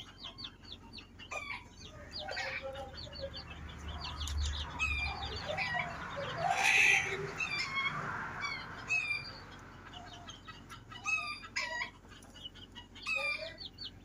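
Quail calling: many short, high chirps and peeps at an irregular pace, with a few lower calls and a brief louder noise about halfway through.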